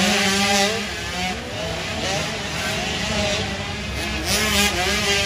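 Several 65cc two-stroke motocross bikes racing, their engines revving up and down together, pitch rising and falling as they accelerate and back off.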